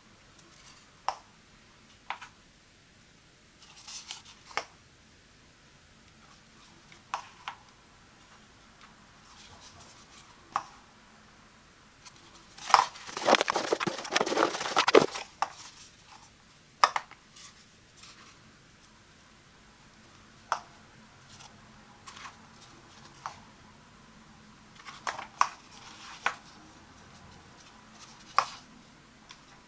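Plastic single-serve coffee pods clicking one at a time as they are set down on a table. About halfway through comes a few seconds of dense rattling and scraping as a stack of pods is handled.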